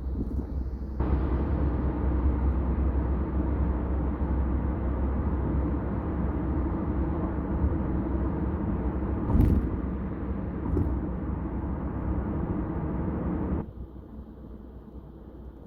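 Road and tyre noise heard from inside a Kia K5 on the highway: a steady low rumble with a hiss that comes in abruptly about a second in and cuts off near the end. A brief louder thump comes a little past halfway.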